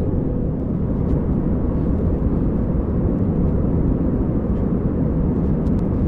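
Cabin noise of an Airbus A319-112 in flight, heard at a window seat beside the wing: a steady, deep rush of its CFM56 jet engines and the airflow over the fuselage, with a faint steady hum in it.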